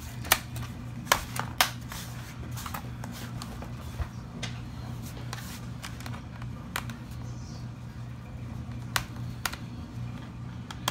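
Sharp plastic clicks and taps as the bottom access door of an HP Pavilion DV7 laptop is pressed into place and its screws are driven back in with a small screwdriver. The clicks come several times in the first two seconds and twice more near the end, over a steady low hum.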